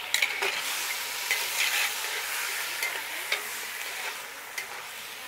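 Frozen leaf spinach sizzling as it thaws in a hot cast-iron Dutch oven while being stirred, with a few light clicks from the stirring. The sizzle slowly fades.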